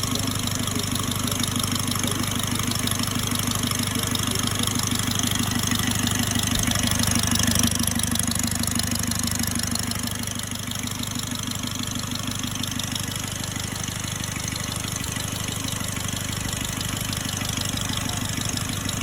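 Mercedes M272 V6 engine idling with a steady pulsing note. It rises a little in the first seven or eight seconds, then settles back slightly about ten seconds in.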